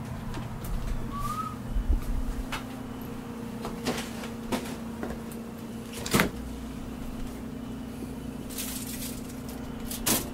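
Scattered knocks and clicks of someone moving about a kitchen over a steady low hum, the loudest knock about six seconds in. Near the end a refrigerator door is pulled open.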